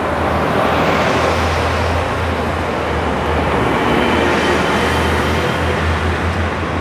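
Road traffic with city buses driving past close by: steady tyre and road noise over a continuous low engine hum.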